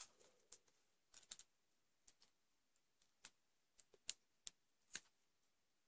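Faint, irregular clicks and taps from handling a small Victorinox Classic SD pocketknife and paracord while trying to cut the cord, the strongest about four and five seconds in.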